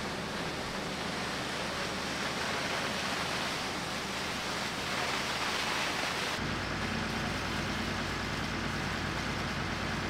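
A fire engine's high-pressure water jet hissing steadily over its pump engine running. About six seconds in, the hiss thins and a steadier low engine hum comes to the fore.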